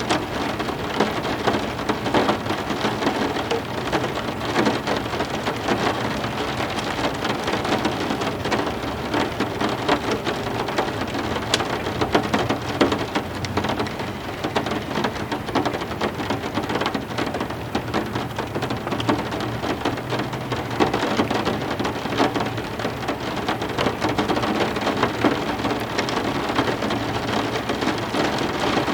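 Heavy rain falling steadily, with many separate drop hits, over a low rumble of distant thunder.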